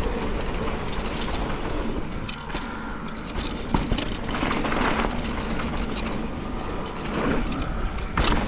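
Mountain bike rolling down a wet dirt trail: steady rush of wind over the camera microphone with tyre noise and rattling from the bike, and a sharp knock about four seconds in.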